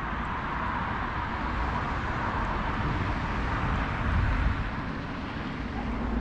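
Steady outdoor background noise with a low rumble, swelling briefly about four seconds in.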